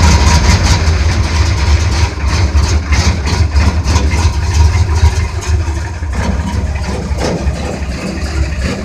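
Tractor engine running steadily just after a cold start, easing slightly in level over the last few seconds.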